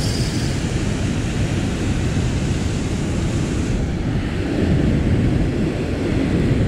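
Steady rushing noise of wind buffeting the microphone over the running water of a dam's spillway current.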